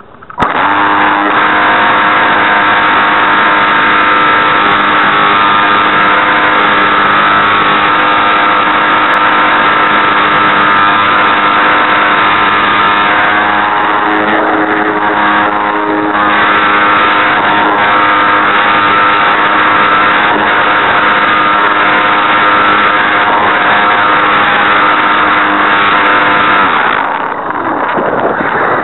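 Electric motor and gearbox of a radio-controlled Super Cub model airplane running at a steady pitch, picked up close by the plane's onboard camera along with the rush of air. The gearbox is broken, which the owner says shakes the plane. It starts abruptly at the outset and winds down near the end, leaving only wind noise.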